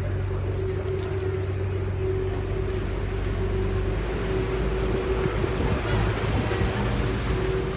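Canal tour boat's engine running at a steady drone, under a rush of water and wind that grows a little louder in the middle.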